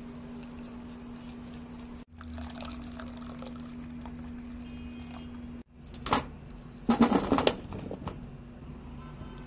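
Water poured from a jug into a bowl of oily spice marinade, over a steady low hum. After a cut, a few loud clatters about six and seven seconds in, at the moment potato slices are being handled in a baking pan.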